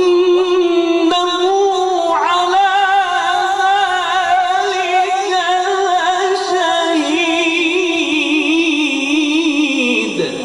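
A man's voice chanting Quranic recitation (tajweed) in one long, unbroken melodic phrase, its pitch wavering in quick ornamental turns. The phrase stops just before the end.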